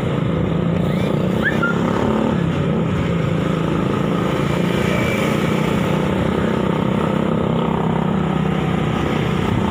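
Motorcycle engine running steadily while being ridden at an even speed, heard from the saddle as a constant hum under a rush of road noise.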